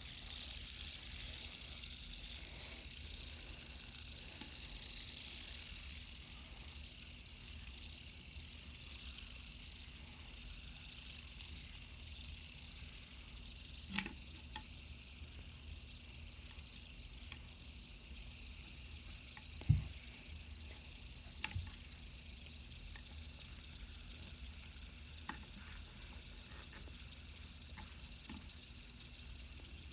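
Fidget spinners whirring on their ball bearings: a steady high hiss that slowly fades as they lose speed. There are a few light clicks and one louder knock about two-thirds of the way through.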